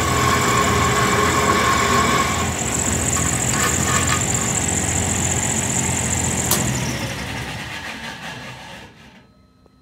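1964 DoAll 1612-U metal-cutting bandsaw running a fairly dull welded blade through steel bar stock, a steady high-pitched whine with a sharp click about six and a half seconds in. Over the last three seconds the saw winds down and fades out.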